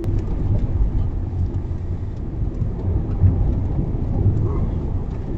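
SUV driving down a forest road, heard from inside: a steady low rumble of road noise with faint scattered ticks from the tyres.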